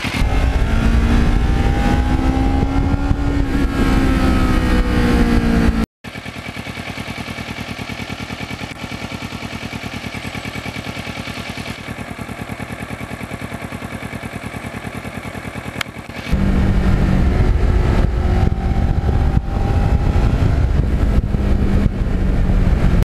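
Kawasaki Ninja 650R's parallel-twin engine running on the move. At first its pitch rises and falls with the throttle; after about six seconds it cuts abruptly to a quieter, evenly pulsing note for about ten seconds, then it jumps back to loud, steady running.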